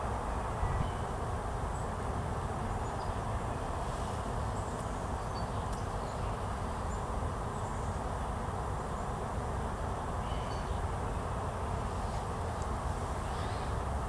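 Steady outdoor background noise, with a few short, faint, high chirps scattered through it.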